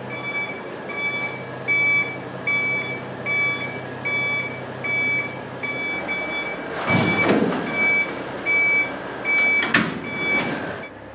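Semi truck backing up with its backup alarm beeping steadily, about three beeps every two seconds, over the low hum of the diesel engine. About seven seconds in there is a loud burst of air hiss as the truck's air is let down, and a sharp knock comes near the end.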